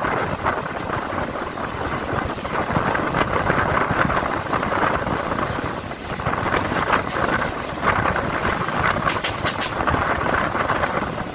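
Running noise of an Indian Railways EMU local train heard from its open doorway: steady rumble and hiss of wheels on the rails at speed, with a quick run of sharp clicks about nine seconds in as the wheels cross rail joints or points.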